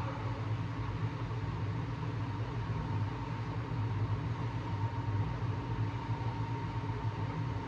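Steady low mechanical hum with a thin, steady higher tone above it, unchanging throughout.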